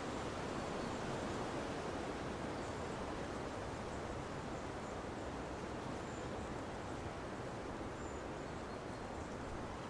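Steady wind rushing through woodland trees, with a few faint, short, high chirps.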